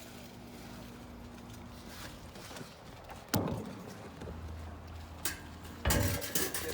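Knocks and clatter: one sharp knock about halfway through, another a couple of seconds later, then a quick run of clattering knocks near the end.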